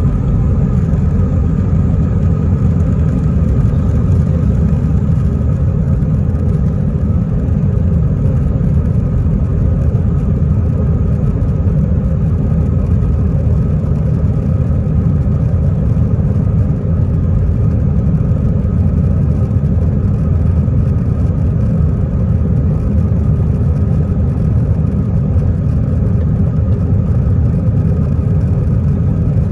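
Airbus A321 jet engines at takeoff thrust, heard inside the cabin: a loud, steady, deep rumble with faint steady higher tones, through the end of the takeoff roll and the initial climb.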